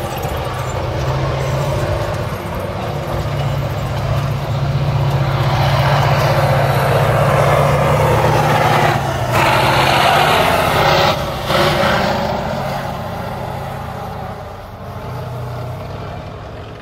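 T-72 main battle tank's V12 diesel engine running hard with the noise of its tracks as it drives past on dirt, loudest as it passes closest near the middle. The engine note rises just after, then the sound fades as the tank drives off.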